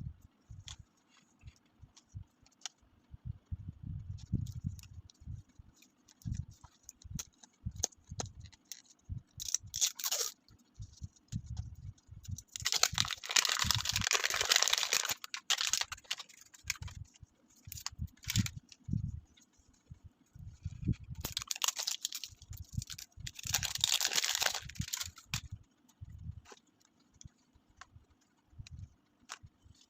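Toy packaging being handled and opened: scattered light knocks and taps, with a brief rustle and then two longer stretches of crinkling or tearing packaging, about a third of the way in and again past the middle.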